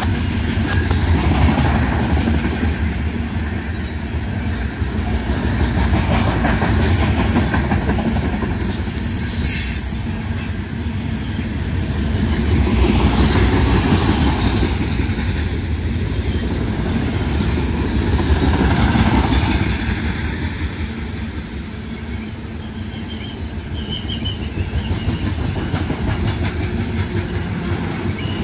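Loaded coal train cars rolling past: a steady rumble of steel wheels on the rails with clacking over the joints, swelling and easing in loudness every few seconds as the cars go by. A faint high wheel squeal comes in briefly about two-thirds of the way in.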